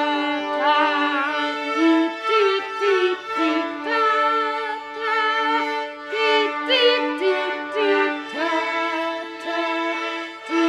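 Violins playing together: long held notes in more than one part at once, wavering in pitch, with slides into and between notes.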